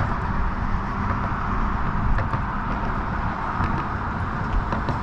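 Steady road traffic noise: an even rushing hiss with a low rumble underneath and a few faint ticks.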